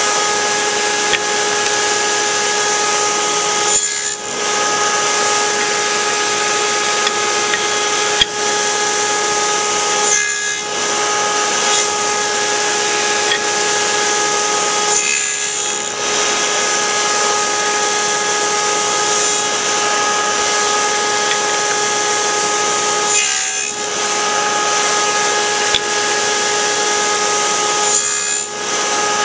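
Table saw with a stacked dado blade running steadily with a constant hum, cutting tenons on the ends of wooden slats pass after pass.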